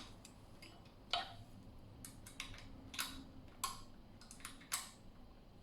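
Faint, irregular metallic clicks and taps of a tool working the front disc brake caliper's mounting bolts as they are loosened.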